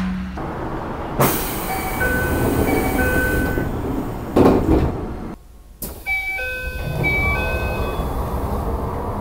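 Commuter train sliding passenger doors with their electronic door chime sounding as a repeated two-note beep, twice in separate clips, over the rumble of the car. A short thud about four and a half seconds in, and the sound cuts abruptly between clips.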